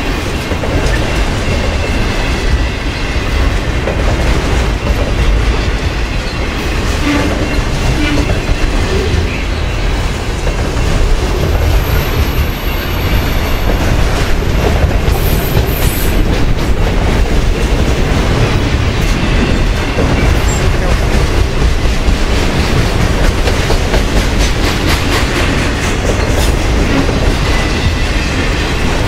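Freight train of autorack cars rolling past close by: a steady loud rumble of steel wheels on rail, with a rapid clickety-clack of wheels passing over rail joints.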